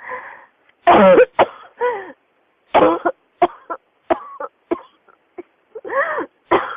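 A person in a coughing fit: about a dozen coughs in short runs of two or three, with brief pauses for breath between. The cough is one the title puts down to pneumonia.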